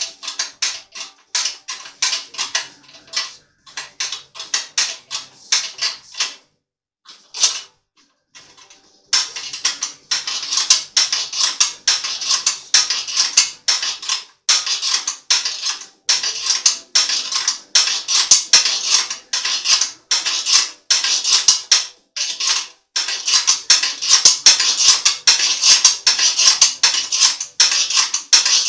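Rapid, regular metallic clicking, a few clicks a second, from the mechanism that loads a 3D-printed test block in a destructive load test. The clicking pauses about six seconds in, then resumes louder and faster.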